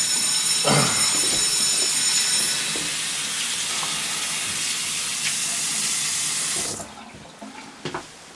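Sink tap running with a steady hiss, shut off abruptly about seven seconds in. Over the first two and a half seconds a mobile phone rings with a high, steady electronic tone, and a couple of faint clicks follow near the end.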